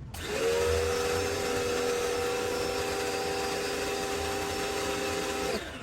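Pressure washer running: a steady motor hum over a high spray hiss. It starts abruptly and winds down just before the end.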